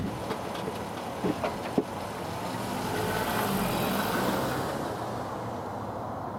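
A car driving slowly past close by with its brakes on; its noise swells and fades about three to five seconds in, after a few sharp clicks in the first two seconds.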